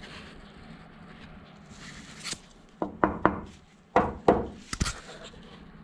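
About eight sharp knocks and clicks in uneven clusters, from about two seconds in until near the end, over a low background. These are handling knocks from work around the freshly welded panel.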